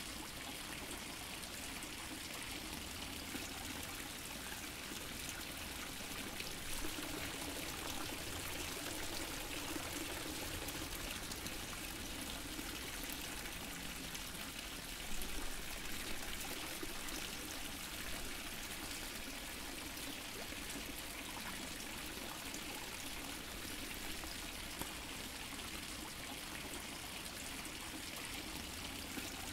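Fountain water splashing and trickling steadily, with a couple of slightly louder splashes about 7 and 15 seconds in.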